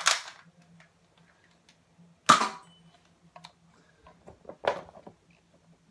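Nerf Accustrike Quadrant dart blaster being primed and fired with its spring plunger: three sharp clacks, one right at the start, the loudest a little over two seconds in, and one near the end.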